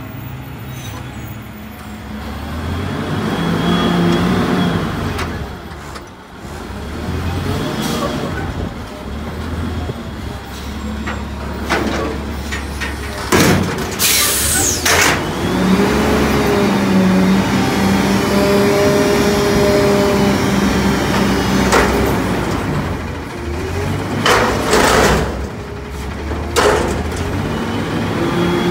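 Autocar garbage truck with a McNeilus front-loader body: the diesel engine runs as the truck pulls up, and a loud air-brake hiss comes about halfway through. The engine then holds at raised revs while the hydraulic forks lift a steel dumpster, with several sharp clanks of the container on the forks near the end.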